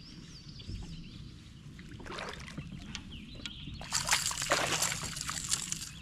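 Water splashing and dripping beside a kayak as a small bass is handled out of the water, with a short burst about two seconds in and a louder stretch of splashing and knocks in the second half.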